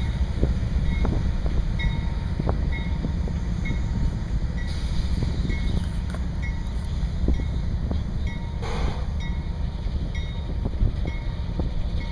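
EMD SD40-2 diesel locomotives' 16-cylinder two-stroke engines running with a steady low rumble. A short high ding repeats about every two-thirds of a second throughout.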